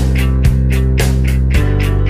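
Rock background music with distorted guitar, held bass notes and a steady drum beat.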